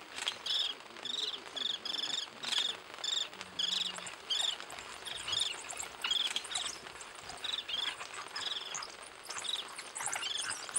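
Insect chirping in a steady rhythm, about two high, buzzy chirps a second.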